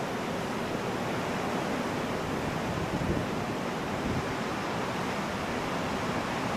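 Ocean surf washing and breaking on a beach as a steady, unbroken rush of noise.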